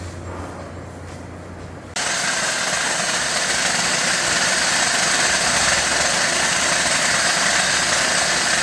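A low steady hum, then about two seconds in a machine starts with a loud, steady whirring noise.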